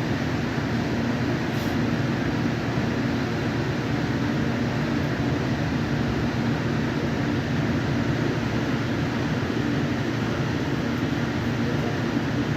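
Light rail train running, heard from inside the car: a steady low rumble with a faint steady hum.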